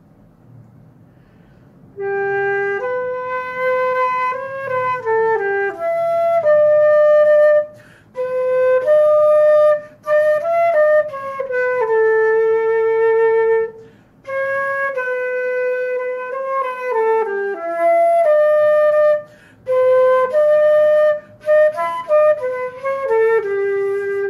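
Concert flute playing a slow melody, starting about two seconds in, in several phrases broken by short pauses for breath. It is meant as an example of a poor sound: breathy with a lot of air noise, unfocused, going flat in places with odd intonation.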